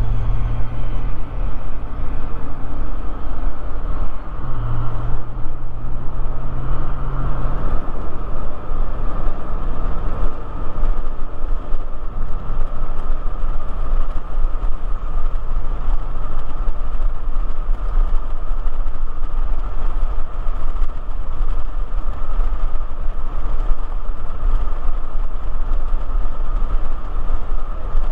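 Steady rumble and road noise of a car driving at speed, heard from inside the car, with a low hum that swells and fades a few times.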